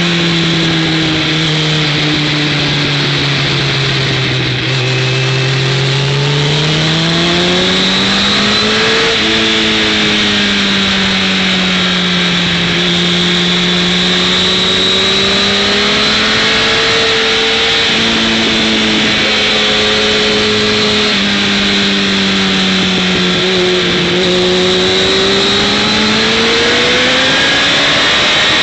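Motorcycle engine heard from on board at track speed, its revs dropping and climbing again several times through the corners, under a steady rush of wind noise.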